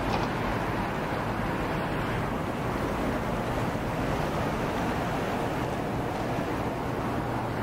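Steady wind noise on the microphone over a low, even hum, with no distinct events.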